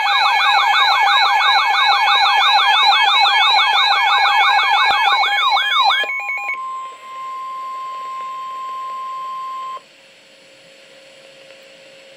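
Emergency Alert System alert tones for a severe thunderstorm warning. A loud siren-like warble sweeps about five times a second over steady tones for about six seconds. Then a single steady alert tone is held for about three and a half seconds and cuts off to a faint hum.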